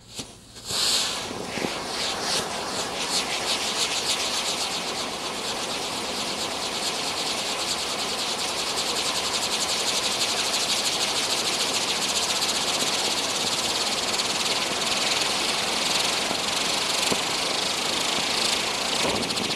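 Catherine wheel firework spinning, its burning drivers giving a steady, loud hiss with a rapid flutter. It flares up about a second in and dies away at the very end.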